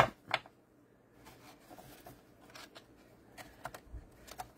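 Thick paper cards being handled one by one: a sharp tap at the start, then faint scattered ticks and rustles of cardstock as cards are picked up and laid down.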